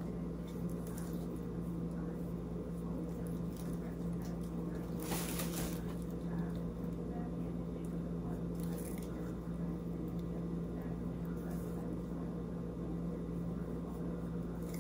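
Soft rubbing and handling noises as eyeshadow is swatched with the fingers, the clearest about five seconds in and again near nine seconds, over a steady low hum.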